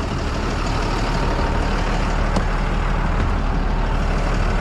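Heavy truck engine idling, a steady low rumble, over the hiss of roadside traffic.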